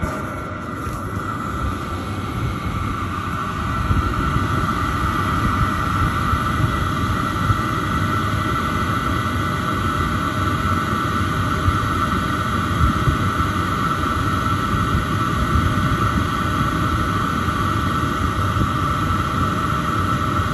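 Chinese diesel heater running, its combustion exhaust giving a steady low rumble at the outlet, with a steady high-pitched whine over it. It gets louder about four seconds in.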